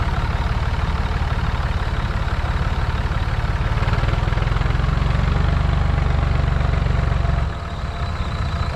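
Massey Ferguson 135 tractor's diesel engine working under load, towing the tractors chained behind it. It runs with a heavy, even throb, gets louder about four seconds in, then drops off sharply near the end as the load or throttle comes off.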